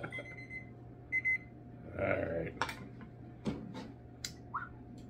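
A couple of short electronic beeps from a digital timer near the start, then a few light clicks of a metal spoon against a small glass hot-sauce bottle as sauce is poured onto the spoon.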